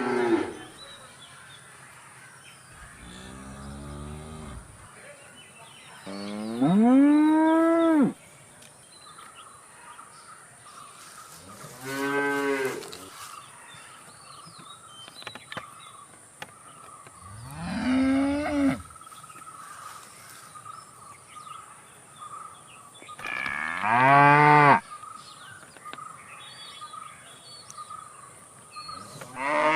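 Cattle mooing: a series of about six long moos, one every six seconds or so, the loudest about seven seconds in.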